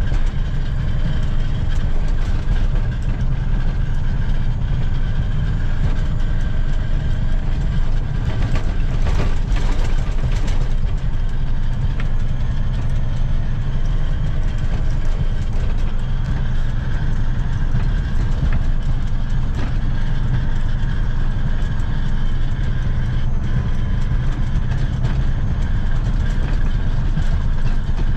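John Deere 670G motor grader's diesel engine running steadily, a heavy low rumble, with a few clicks and rattles about nine to ten seconds in.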